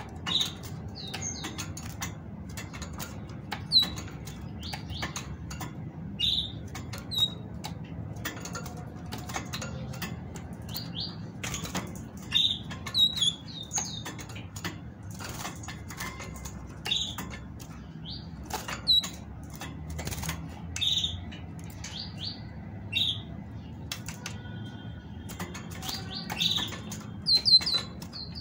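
Caged female great tit giving short, high chirps at irregular intervals, calls a female uses to prompt males to sing. Between and over the chirps come wing flutters and sharp clicks as the bird hops about the cage.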